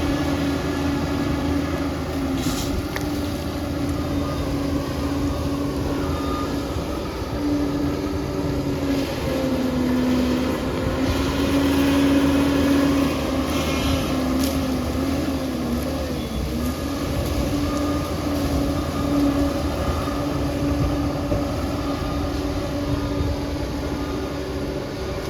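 Diesel engine of a crawler bulldozer working, with a steady drone that dips in pitch briefly a few times as the load changes.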